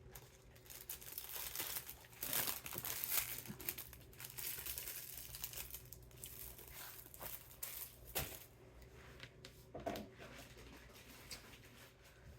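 Plastic packaging bags crinkling and rustling as they are handled, with bouts of tearing; the busiest rustling comes about two to three seconds in.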